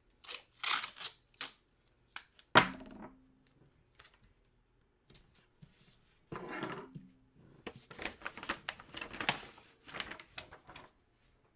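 Hands handling collectibles and their packaging on a table: scattered clicks and rustling, with one sharp knock about two and a half seconds in and a longer stretch of rustling and clicking in the second half.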